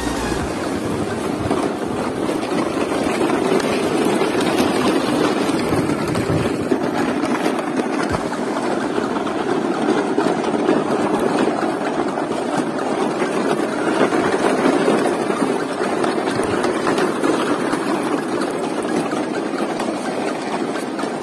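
A train of plastic toy trucks rolling over a bumpy dirt path, its wheels making a steady rolling noise.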